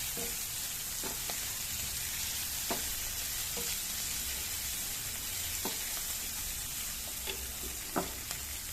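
Shrimp and spice paste sizzling in hot oil as they are stir-fried, with a few sharp clicks of a spatula against the pan.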